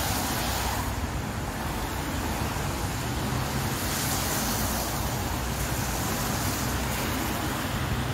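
Street noise of traffic on a wet road with wind buffeting the microphone: a steady low rumble under a hiss that swells for a couple of seconds midway.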